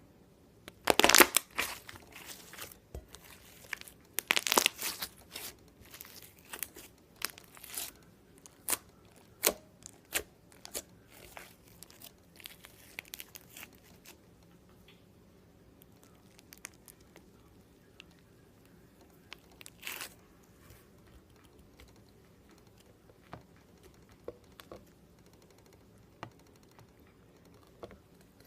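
Slime being handled, giving irregular crackles and pops. They come thick and loud about a second in and again around four to five seconds, then thin out to occasional clicks.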